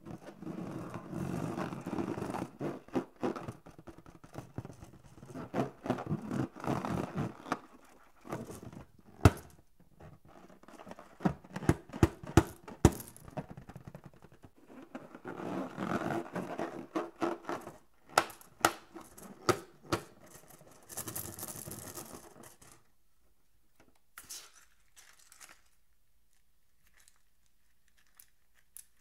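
Inflated latex balloon being squeezed and rubbed between hands: squeaking, rubbing rubber with many sharp snaps and taps, stopping about two-thirds of the way through.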